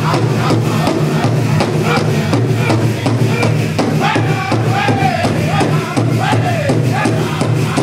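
Powwow drum group singing a jingle dress song: a fast, steady beat on the big powwow drum under high voices that glide and fall in pitch.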